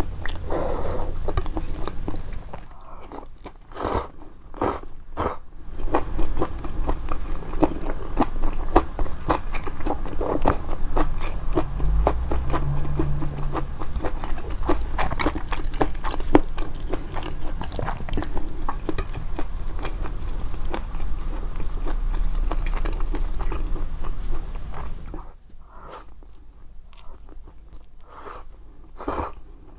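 Amplified chewing of japchae, glass noodles and vegetables, with rapid wet mouth clicks and crunchy bites. It goes quieter for a couple of seconds a few seconds in, and again near the end.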